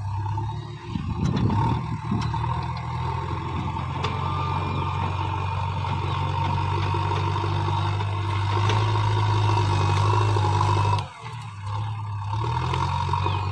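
JCB 3DX backhoe loader's diesel engine running under work, with a steady high whine over it and some clatter about a second in. It grows louder about eight seconds in, drops out suddenly for a moment near the end, then picks up again.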